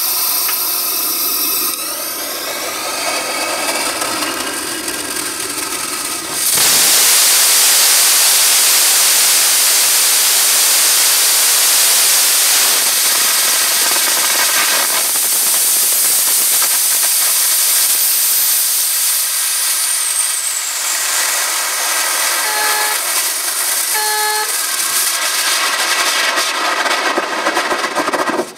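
Hy800 'Corvette' hybrid rocket engine, burning HTPB with liquid oxygen, during a hot-fire test. A whistling hiss is heard for the first few seconds. The engine then ignites with a sudden jump to a loud, steady rushing hiss that runs for about twenty seconds, and two short beeps sound near the end.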